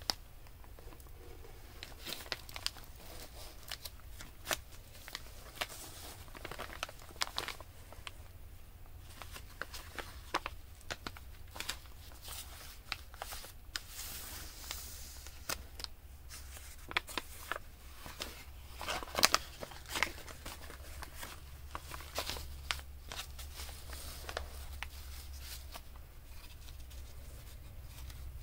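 Paper and packaging rustling and crinkling, with irregular light taps and clicks as paper craft pieces are handled; a steady low hum runs underneath.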